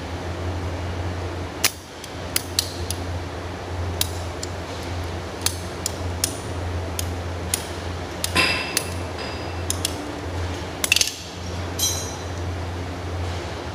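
Irregular sharp clicks and a few brief ringing clinks from hand tools and small plastic pipe fittings being handled, over a steady low hum.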